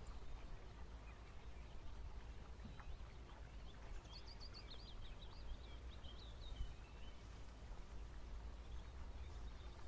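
A small bird singing a quick, twittering phrase of high notes, starting about four seconds in and lasting a couple of seconds, over a steady low rumble.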